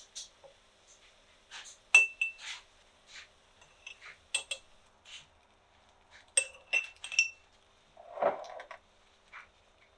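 Utensils clinking against glass mason jars as cooked diced fruit is spooned in: a series of sharp taps, several with a short glassy ring, the loudest about two seconds in and a quick cluster around six to seven seconds. A longer scraping sound comes about eight seconds in.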